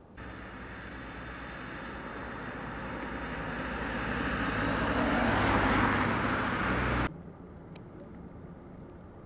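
A car approaching on a wet, slushy street: tyre hiss on the wet road over the low engine, growing louder as it nears and cutting off suddenly about seven seconds in.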